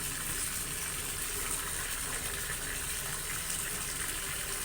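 Water running steadily from a tap, filling a container.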